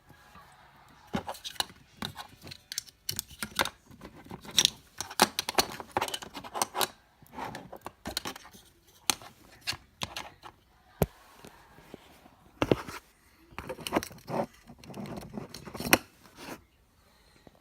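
Irregular clicks, taps and short scrapes of small hard objects being handled, with a few brief pauses.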